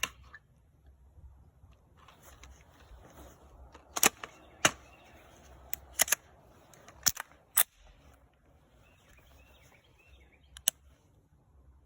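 Suppressed gunshots from a Sig Sauer MPX fitted with a SilencerCo Hybrid suppressor: about a dozen sharp cracks. They come as single shots and quick pairs at irregular intervals, bunched in the middle, with a final quick pair near the end.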